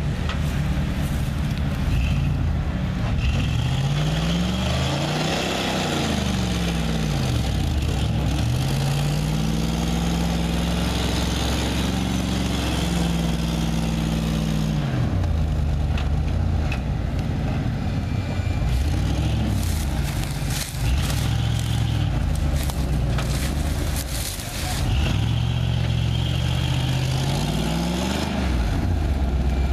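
Ford F-150 pickup's engine revving under load as the stuck truck tries to drive out of a muddy creek bed. The revs climb and fall several times, stay high for a few seconds midway, and climb again near the end.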